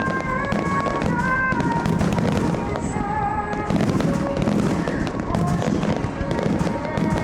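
Fireworks bursting and crackling in a dense run of bangs, with melodic music playing over them.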